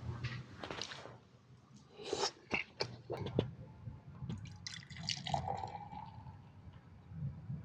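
Quiet eating sounds: scattered small clicks and taps of chopsticks on tableware, with soft wet ticks from the food. A brief ringing note sounds about five seconds in.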